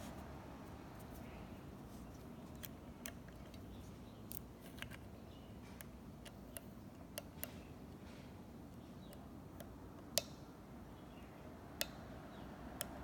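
Faint, irregular small metallic clicks of a pick and tension wrench working inside an American 1100 padlock, with two sharper clicks near the end.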